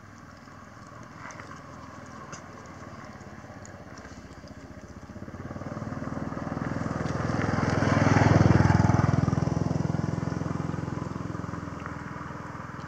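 A motor vehicle passing by: its engine grows louder to a peak about eight seconds in, then fades away.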